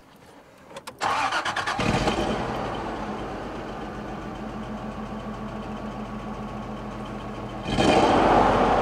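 Motorhome's gasoline engine cranked by the starter, catching in under a second and settling into a steady idle, getting louder near the end. This is a test start after a burnt-through spark plug wire, which had been grounding out on the block and causing a misfire, was taped up.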